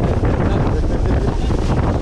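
Wind buffeting the microphone on the open deck of a charter fishing boat, with a loud, steady low rumble underneath from the boat and the water.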